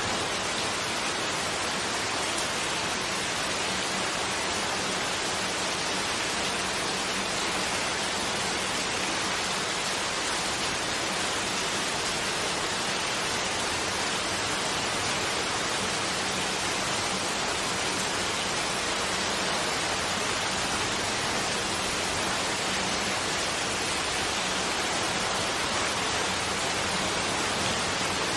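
Steady rain, an even unbroken hiss.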